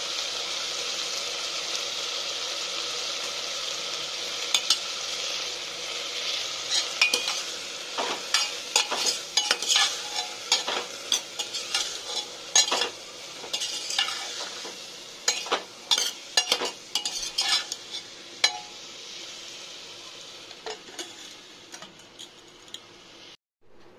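Potatoes and green beans sizzling as they fry in a pressure cooker, stirred with a steel ladle that scrapes and clinks against the pot over and over from about four seconds in until near nineteen seconds. The sizzle cuts off suddenly just before the end.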